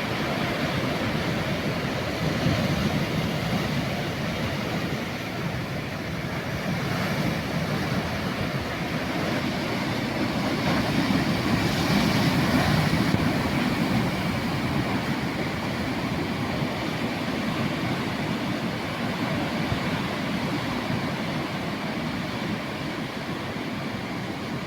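Sea waves washing in, a steady rushing with one wave swelling louder about halfway through.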